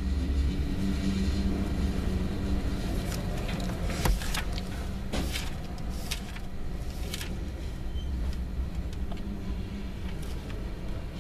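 Tank cars of a freight train rolling past at slow speed: a steady low rumble, with a run of sharp clacks from the wheels partway through.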